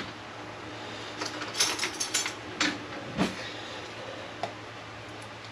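Light clicks and knocks of things being handled, several in quick succession in the middle and one more later, over a steady low hum.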